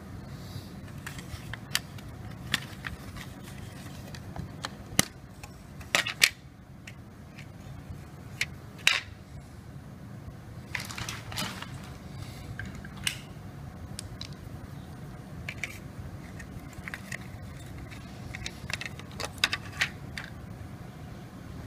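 Scattered sharp plastic clicks and taps as a Tenda router's plastic case is pried open and its circuit board handled and lifted out, over a steady low hum.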